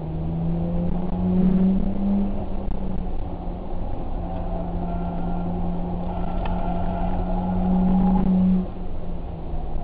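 Car engine running hard with a steady drone, its pitch climbing a little about a second in, then holding, and falling away abruptly near the end as the throttle is eased.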